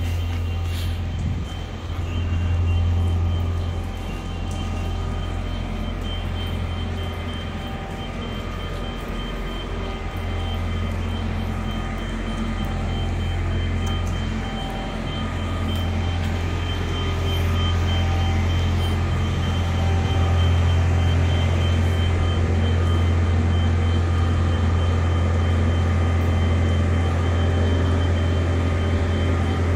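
Diesel power pack of a self-propelled modular transporter running under a yacht, a steady low drone that grows a little louder about halfway through, with a faint high steady tone over it.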